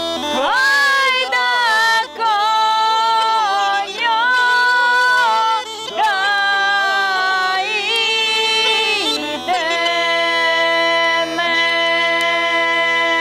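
A man and a woman singing a Rhodope folk song together over a kaba gaida, the deep-toned Rhodope bagpipe, whose steady drone holds beneath the ornamented melody. The melody breaks off briefly between phrases.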